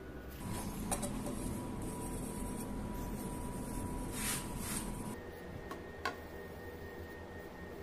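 A pad rubbing along a steel katana blade: faint scraping, with a couple of short strokes a little after four seconds in, over a steady faint hum.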